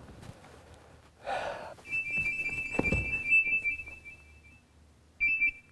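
Electronic beeping from a bedside device, a high, rapidly pulsing double tone that sounds for about three seconds and then briefly again near the end, after a short rustle.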